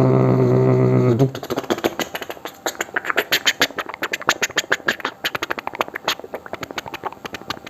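Man imitating a helicopter with his mouth. A held, buzzing hum for about the first second gives way to a fast run of chopping rotor-like clicks, several a second, that fade out near the end as the helicopter flies off.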